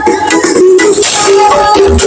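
Very loud electronic dance music played through a big carnival sound system (sound horeg) during a sound check, with a quick rattling percussion beat over held synth notes.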